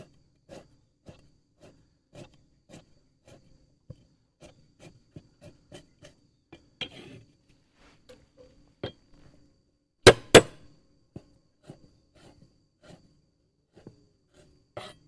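Large kitchen knife slicing fresh ginger on a wooden chopping block: a steady run of light chops, about two a second, with two much louder knocks about ten seconds in.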